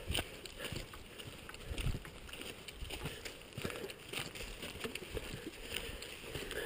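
Faint footsteps and rustling on a hiking trail: irregular soft knocks and scuffs over a low outdoor hiss.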